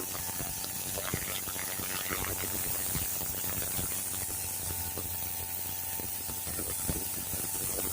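Craftsman 2400 PSI electric pressure washer running under load with the turbo nozzle: a steady motor-and-pump hum under the hiss of the water jet hitting brick.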